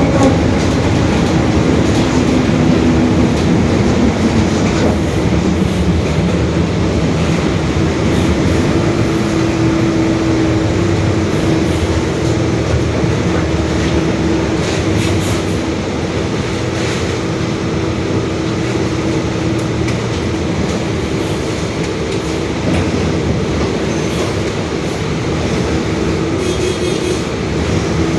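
Mercedes-Benz OF-1721 Bluetec 5 city bus under way: diesel engine and drivetrain running steadily, with a humming drone from the growling differential that is strongest about ten seconds in. A few sharp clicks come through partway along.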